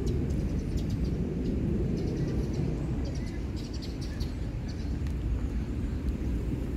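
Outdoor ambience: a steady low rumble with birds chirping in short bursts, about two seconds in and again near four seconds.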